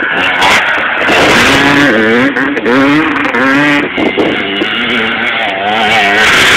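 Motocross bike engine revving hard, its pitch rising and dropping back several times.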